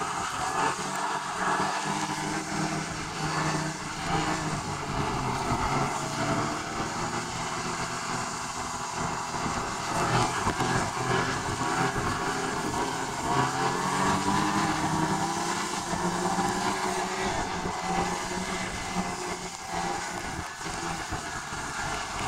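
Inside a moving car: steady engine and road noise, with the engine's pitch shifting slowly up and down.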